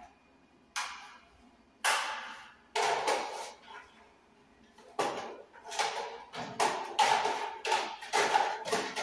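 Hard plastic network units clacking and knocking against a metal wall-mounted network cabinet as they are handled. A few separate knocks come first, then a quicker run of louder clacks in the second half, some with a short metallic ring.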